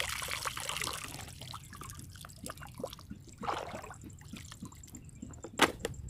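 Shallow water trickling and dripping, with small splashes and scattered light knocks, and one sharp knock about five and a half seconds in.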